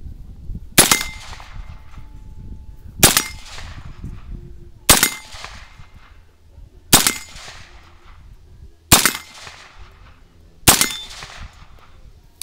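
1944 M1A1 paratrooper .30 Carbine fired six times, slow aimed semi-automatic shots about two seconds apart, each sharp crack trailing off in a short ring.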